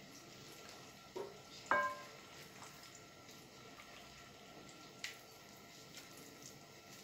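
Gloved hands working a whole raw chicken in a wet chermoula marinade in a glass bowl make faint wet handling sounds. Two knocks come a little over a second in, the second a short ringing clink against the bowl, and a small click comes about five seconds in.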